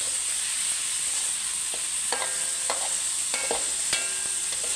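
Diced pork belly sizzling in a hot wok as it is stir-fried with a spatula, cooking until the meat firms up. Over the steady sizzle, the spatula scrapes and clinks against the metal pan about five times in the second half, each clink ringing briefly.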